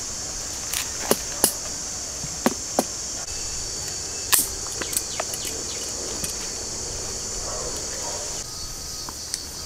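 Steady high-pitched insect chorus, with a series of short sharp clicks from scissors snipping durian stems and fruit being handled. The loudest snip comes about four seconds in.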